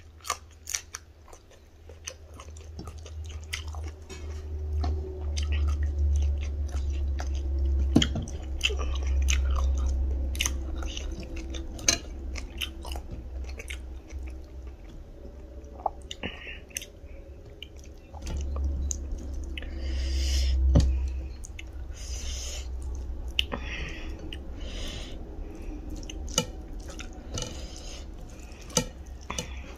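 Chewing and mouth sounds from eating rice, dal and pork by hand, with many small clicks and smacks, over a low rumble that swells twice.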